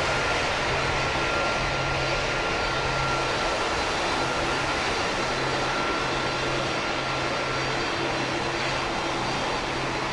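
Airplane engine noise: a steady rush with a thin whine that fades out about eight seconds in.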